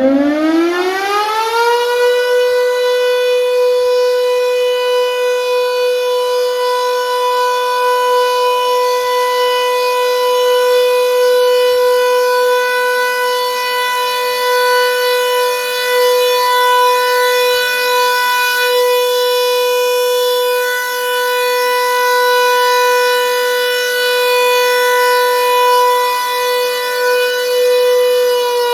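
Secomak CS8 warning siren sounding a test. It finishes winding up in the first two seconds, then holds a loud, steady single-pitched wail, and begins to wind down right at the end.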